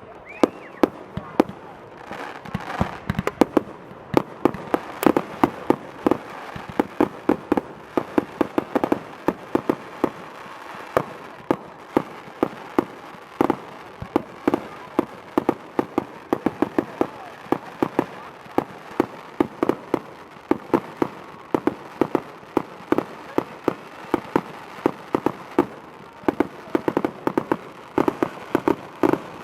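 Fireworks going off in a rapid, continuous string of sharp bangs and pops, several a second, with a short rising whistle at the very start.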